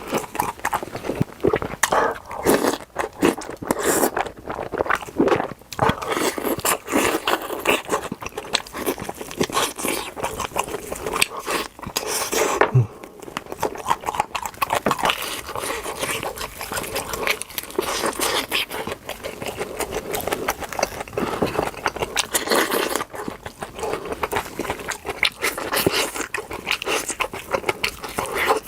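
Close-up eating sounds: a continuous run of wet chewing, smacking and crunching clicks.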